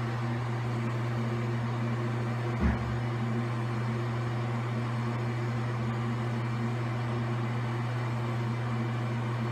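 Bathroom ceiling exhaust fan running: a noisy, steady low motor hum over a rush of air, drawing strongly enough to hold a square of toilet paper to its grille. A brief low thump nearly three seconds in.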